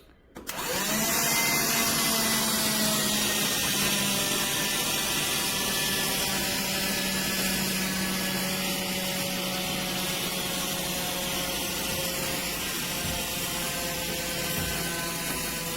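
Black+Decker Dustbuster cordless handheld vacuum switched on with a click, its motor spinning up within half a second and then running with a steady whine and rushing air.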